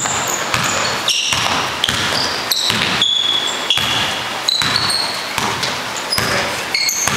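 Indoor pickup basketball: a basketball being dribbled on a hardwood gym floor and sneakers squeaking in short high chirps as players run and cut, echoing in the hall.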